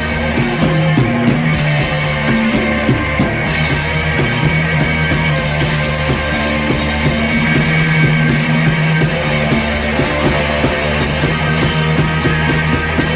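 Background rock music with guitars and a steady beat.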